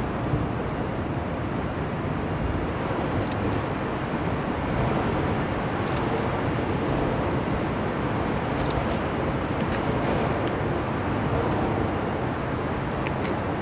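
Steady low rumble of a large bulk carrier passing close by under way.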